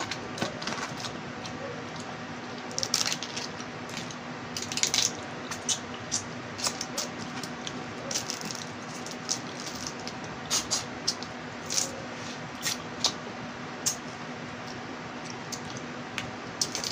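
Small crabs being eaten by hand: irregular sharp crackles and snaps of shell being broken and picked apart, with chewing in between.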